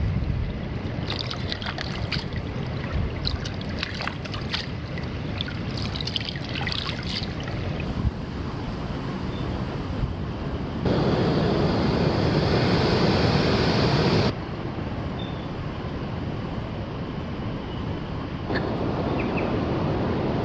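Shallow stream trickling while cupped hands scoop and splash in the water for the first several seconds. Later, steady wind noise on the microphone, loudest for about three seconds in the middle and rising again near the end.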